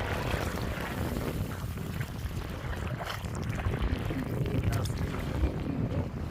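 Wind buffeting the microphone over sloshing water, with a couple of short splashes or knocks.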